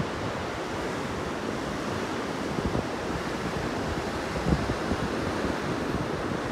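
Sea surf breaking on rocks: a steady rushing wash, with wind buffeting the microphone in low gusts, the strongest about four and a half seconds in.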